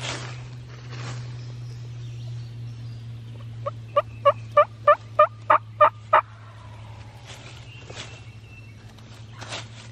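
A run of about eight turkey yelps, evenly spaced at roughly three a second, lasting a little over two seconds from around four seconds in, over a steady low hum.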